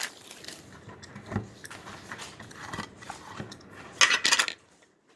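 Handling of a freshly opened plastic slime bottle: scattered light knocks and rubbing, then a quick cluster of sharp clattering clicks about four seconds in.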